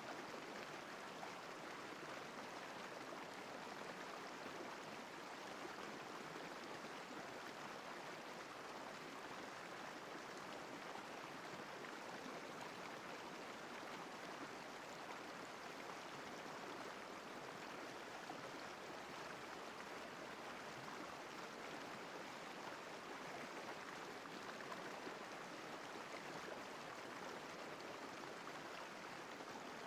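Steady flowing water, an even rushing hiss of a river or stream with no separate splashes, calls or changes.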